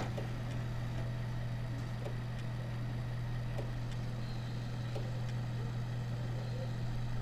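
Failing hard disk drive ticking irregularly (tick, tick, ting, tick) over the steady hum of the running PC's fans. The drive's read/write head is knocking about instead of reading normally, the sign of a failing hard disk that needs replacing.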